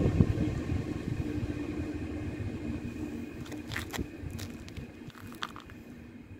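Deutsche Bahn InterCity train rolling away along the platform, its running noise fading steadily as it recedes. A few short sharp sounds come past the middle.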